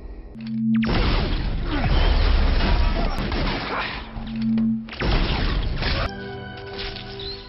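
Action-film sound effects: long loud stretches of crashing, blasts and whooshes, each preceded by a brief steady low hum. Near the end they give way to score music with held notes.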